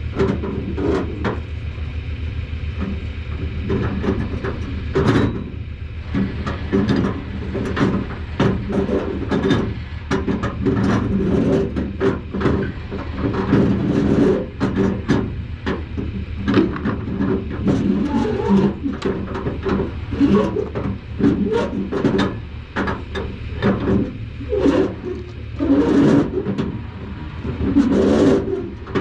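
Steady engine idling under many irregular knocks and clanks.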